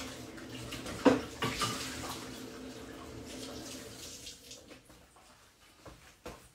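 Water running from a tap, fading out about four and a half seconds in, with a knock about a second in and a few light clicks near the end.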